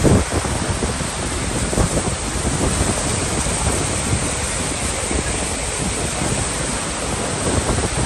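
Steady roar of Niagara Falls' crashing water and spray, with wind buffeting the microphone.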